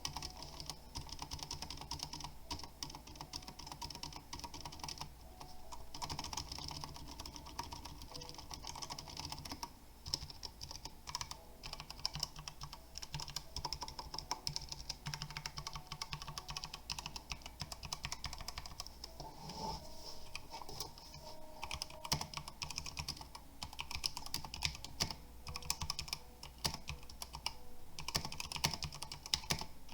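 Typing on a Redragon K556 mechanical keyboard with generic tactile brown switches and ABS keycaps: a fast, continuous run of key clacks.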